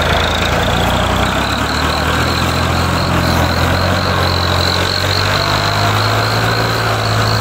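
Tractor diesel engine idling steadily, its note lifting slightly about two seconds in, with a steady high-pitched whine above it.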